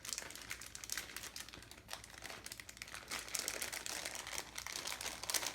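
Plastic packaging crinkling and crackling in irregular small rustles as a tiny electronic part, a flashing LED, is worked out of it by hand.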